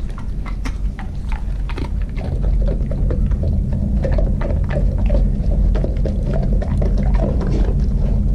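German Shepherd licking and picking up treats off a tile floor: many small irregular clicks and mouth smacks over a steady low rumble.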